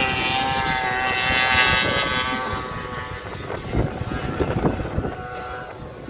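A racing vehicle's small high-revving engine passes by, its whine sinking slightly and fading away over the first two to three seconds. After that, wind buffets the microphone.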